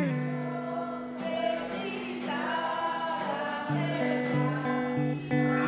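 Several voices singing a song together, with an acoustic guitar.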